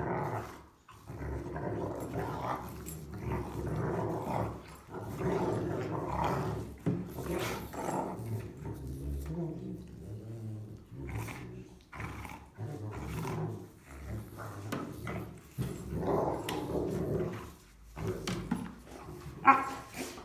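Rottweilers growling in repeated rough bouts while play-fighting, with one short, louder sound near the end.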